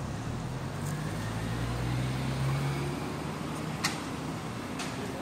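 Low hum of a motor vehicle that swells over the first three seconds and then fades, with a sharp click about four seconds in.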